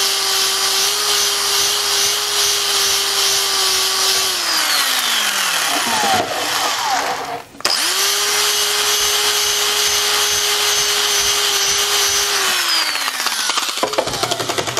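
Cordless drill spinning a fine hone up and down a valve guide bore in an aluminium Porsche 911 cylinder head, the motor running steady with a scraping hiss. It runs in two spells, winding down after about four seconds, starting again near the middle, and winding down again near the end.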